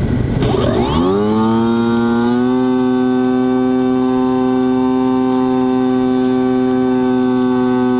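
Aboard an X-8 FPV flying wing, the rush of wind and propeller stops about a second in. A buzzing whine with many overtones takes its place, glides up in pitch and then holds steady, with a faint high steady whistle above it.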